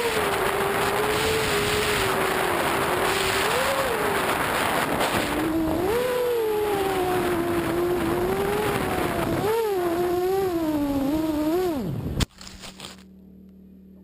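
FPV racing quadcopter's electric motors and propellers whining, the pitch rising and falling with the throttle, over wind rushing past the onboard camera. About twelve seconds in, the whine drops sharply and there is a single sharp impact as the quad crashes into the grass. After that only a faint steady hum remains.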